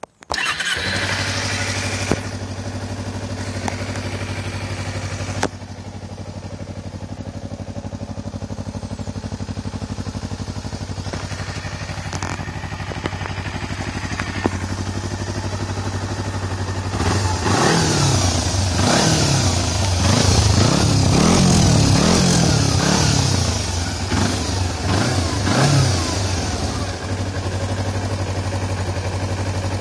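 Kawasaki Ninja 250R's four-stroke parallel-twin engine starting and idling steadily, settling a little quieter about five seconds in. Later it is revved up and down several times, then returns to idle and cuts off at the end.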